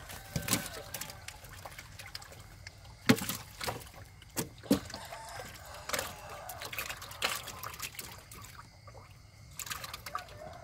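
Water splashing and dripping in irregular splashes as fish are scooped out of the water with a hand net. The sharpest splash comes about three seconds in.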